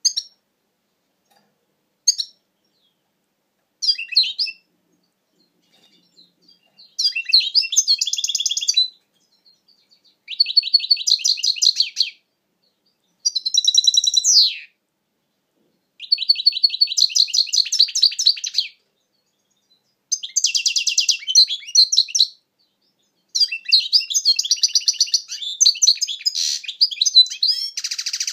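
European goldfinch singing: a few short call notes, then a series of fast, twittering song phrases of about two seconds each with brief pauses between them, the last one longest.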